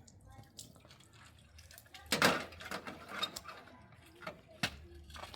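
A brief rushing noise a little after two seconds in, followed by scattered light clicks and knocks, with one sharp knock near the end.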